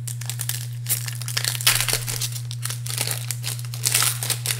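Wrapper of a 1994 Donruss baseball card pack crinkling and tearing as it is ripped open by hand, a run of crackles loudest about halfway through and again near the end, over a steady low hum.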